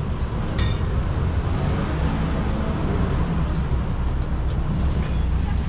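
Steady low rumble of street and traffic noise, with a short click about half a second in.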